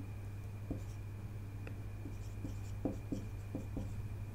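Writing by hand: a pen making short scratching strokes and light taps on a writing surface, several in quick succession in the second half. A steady low electrical hum and a faint steady high-pitched tone run underneath.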